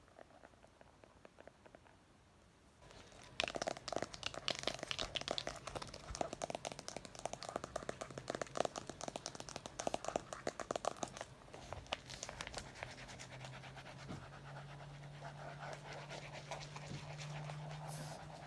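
Rapid scratching and tapping on a book, starting about three seconds in as a dense run of quick taps and scratches, then settling into more even scratching in the second half.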